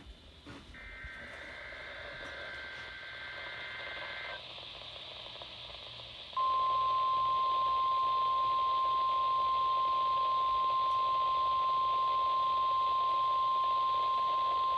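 NOAA Weather Radio test signals over a radio receiver. First a warbling two-tone SAME digital data burst lasts about four seconds. After a short gap comes the steady single-pitched 1050 Hz warning alarm tone, the loudest sound, over faint radio hiss.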